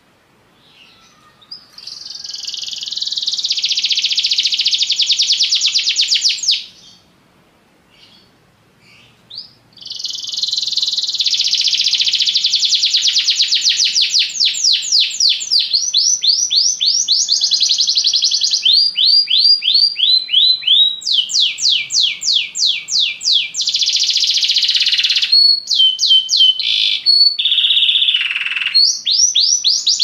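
Domestic canary singing: a few seconds of rapid trilling, a short pause, then a long unbroken song of fast rolling trills and runs of repeated sweeping chirps that change pace from one run to the next.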